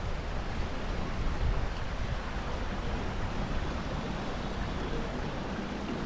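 Steady rushing of a shallow stream flowing over rocks, with wind rumbling on the microphone.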